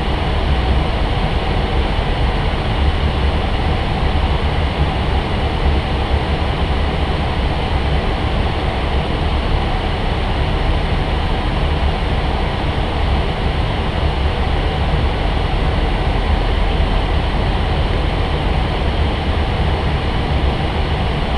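Steady flight-deck noise of an Airbus A320 in flight: an even rushing with a low rumble underneath, no change in level.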